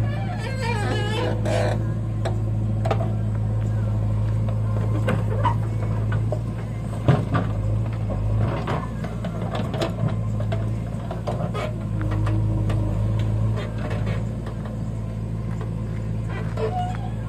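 Mahindra 575 DI tractor's diesel engine running steadily as it pulls a fully loaded sand trolley.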